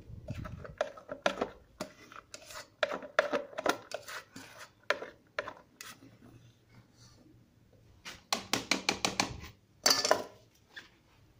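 Hand working through rice and water in a metal pot, grains and fingers scraping and knocking against the pot's sides in irregular strokes. A quick run of about eight strokes comes near the end, followed by a louder clatter.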